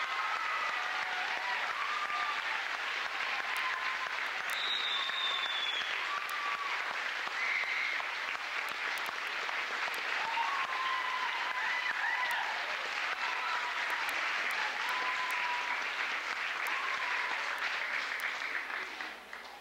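Crowd applauding steadily, with a few scattered voices over the clapping. The applause dies away near the end.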